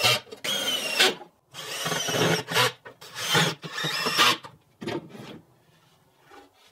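Cordless drill driving screws into 2x4 lumber in several short runs, the motor winding up and stopping each time, with a fainter last run about five seconds in.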